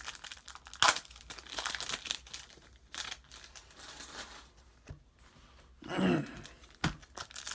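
A plastic trading-card pack wrapper crinkling and tearing as it is opened by hand, in irregular rustles with sharp clicks, the loudest about a second in.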